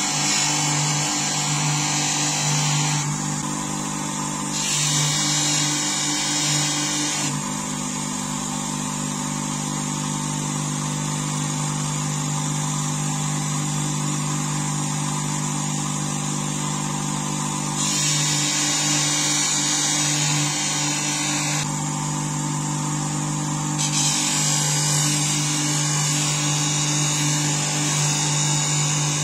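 Bench grinder motor running with a steady hum as a hook knife's curved blade is honed on its spinning felt wheel charged with abrasive paste. The blade against the wheel adds a high hiss in four stretches of a few seconds each, with the motor alone between them.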